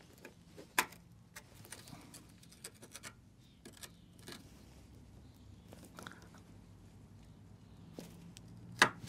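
Flathead screwdriver scraping and clicking in the Dremel-cut slot of a rusted steel bolt as it is forced, with a sharp click about a second in and a louder one near the end. The bolt does not turn: it is seized solid with rust.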